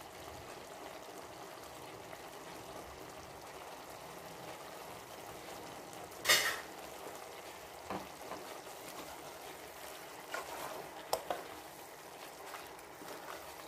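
A pot of chicken with tomato and peppers simmering on the stove with a steady soft sizzle, broken by a few short clinks of a utensil against the pot, the loudest about six seconds in.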